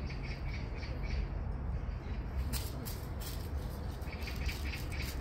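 Magpie chattering, a rapid run of harsh notes, near the start and again near the end, with a few short crackles of dry leaves in between.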